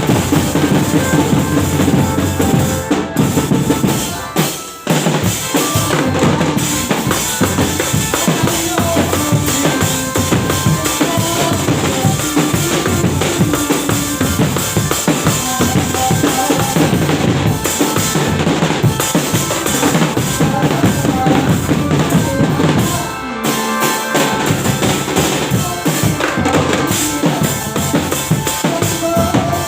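Loud music with a driving drum-kit beat, bass drum and snare, under melodic instruments, with a brief break about four seconds in and another near the end.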